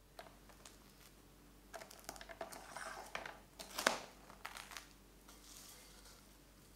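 Plastic cling film rustling as it is stretched over a glass bowl and pressed down around the rim: a run of small crackles lasting a few seconds, loudest about four seconds in.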